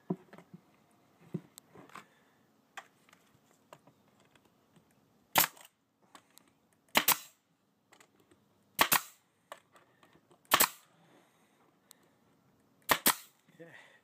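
Brad nailer firing brads into thin wooden boards: six sharp shots, one every one and a half to two seconds, the last two close together. Softer handling clicks come before the first shot.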